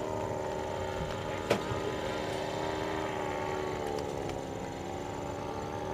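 Paramotor engine of a powered paraglider droning steadily overhead, its pitch sagging slightly about four seconds in.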